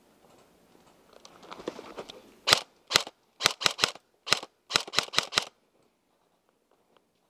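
Airsoft gun firing about eleven sharp shots in quick uneven strings over some three seconds, starting a couple of seconds in; a rustling noise builds up just before the first shot.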